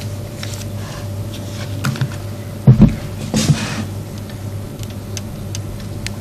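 Whiteboard marker tapping and scratching in short ticks as words are written on the board, over a steady electrical hum. Two loud knocks come a little under three seconds in.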